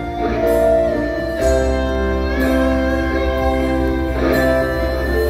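A live band playing through PA speakers: held chords that change every second or so, with a low bass note coming in about a second and a half in and light cymbal strokes above.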